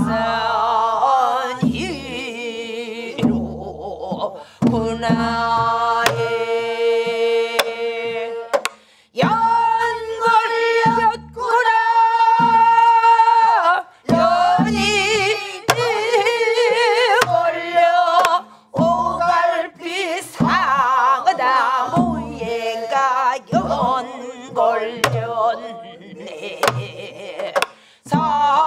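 A woman's voice sings a Namdo folk song (namdo minyo) in long held notes with wide vibrato, with other voices joining. It is accompanied by a buk barrel drum beaten with a stick: low thuds on the head and occasional sharp knocks.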